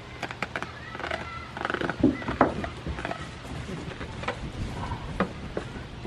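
Goats eating treats from a hand and jostling on a wooden bench: irregular crisp crunching clicks, with a few louder knocks about two seconds in and again near five seconds.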